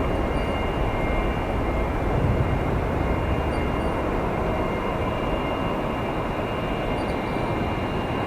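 Boeing 777F's twin GE90-110B1L turbofans at takeoff thrust: a steady rumble with a thin high whine, slowly fading as the jet departs.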